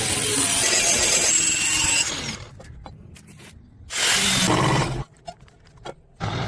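Power tool grinding in bursts: a loud run of about two seconds at the start, then quieter scraping, a second burst of about a second past the middle, and a short start-up again near the end.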